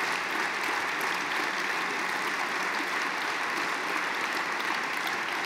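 Steady applause from a large audience of many people clapping.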